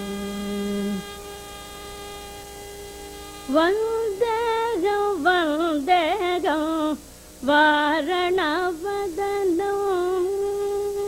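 Carnatic female vocalist singing a heavily ornamented phrase, the pitch swaying in rapid gamaka oscillations over a steady drone. The phrase starts about a third of the way in, breaks off briefly past the middle, and settles into a long held note near the end. No mrudangam strokes are heard.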